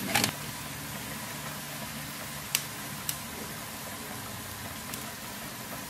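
Steady low hum of an electric cooktop under a pan of broth simmering, with two light clicks in the middle.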